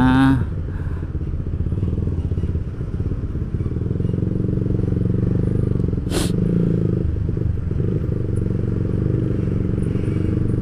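Yamaha Vixion's single-cylinder four-stroke engine running at low revs in stop-and-go traffic, a steady low hum. A brief sharp sound about six seconds in.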